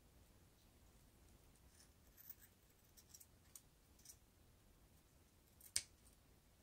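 Scissors snipping a plastic drinking straw into thin strips: a few faint snips in the middle, then one sharper, louder click near the end.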